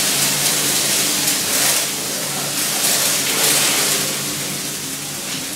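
Steady fan noise: a loud, even whoosh with a low motor hum beneath it.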